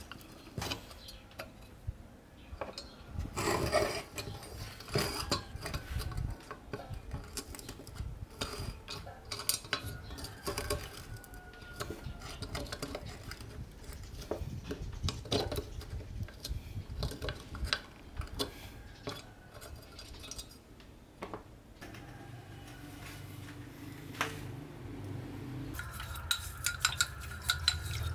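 Metal parts of an old lamp clinking, knocking and scraping as they are handled and worked on, in scattered irregular strokes. A steady hum comes in over the last few seconds, gaining a higher tone near the end.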